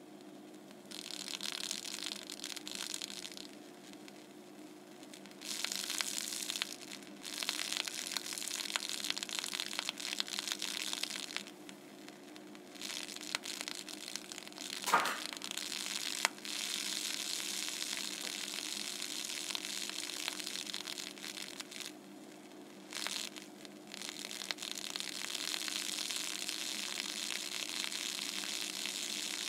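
Hissing sizzle as a CO2 laser burns into a plastic bottle of soap-bubble solution, cutting in and out several times in long stretches, over a steady low hum. One short sharp pop about halfway through is the loudest sound.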